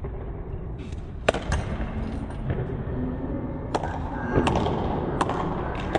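Four or so sharp knocks spread over a few seconds, the first, about a second in, the loudest, over a steady low rumble of room noise.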